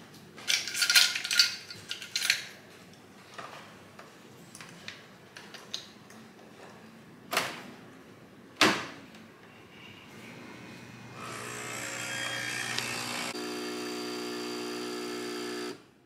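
Dishes and utensils clinking, then two sharp knocks. Then a small electric kitchen appliance motor runs steadily for the last few seconds and cuts off suddenly near the end.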